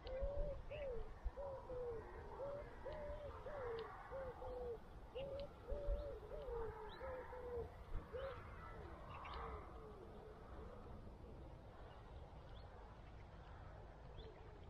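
Fixed-spool reel being wound while a hooked bream is played in: a whine that rises and falls with each turn of the handle, about twice a second, stopping about ten seconds in.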